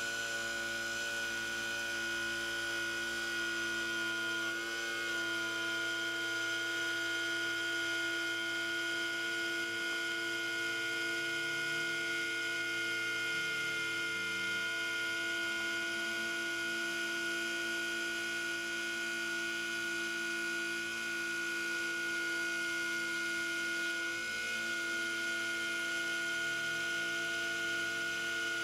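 Sieg SX2.7-based CNC mill running steadily while an end mill cuts hardened steel, a constant whine made of several fixed tones.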